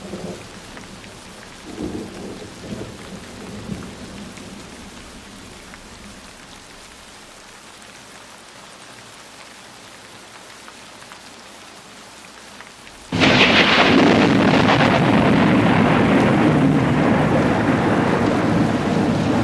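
Steady rain with low rumbles of thunder over the first few seconds. About two-thirds of the way through it jumps abruptly to a much louder, heavy downpour that keeps up steadily.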